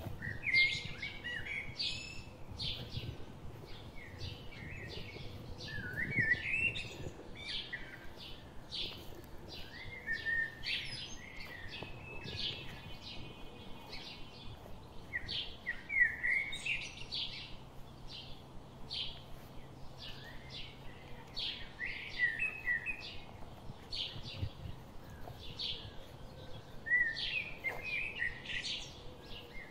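Birds singing and chirping: a short, louder song phrase comes about every five to six seconds among a steady run of quick, high chirps.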